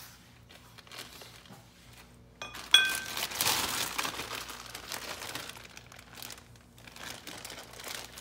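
Crinkling and rustling handling noise as hitch-kit parts are handled, with a sharp, ringing metal clink about two and a half seconds in, followed by a couple of seconds of denser rustling.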